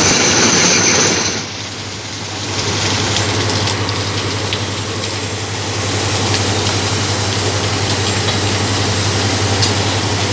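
Heavy diesel engine of a railway track maintenance machine running steadily with a low hum. A louder hissing noise on top stops just over a second in, leaving the engine alone.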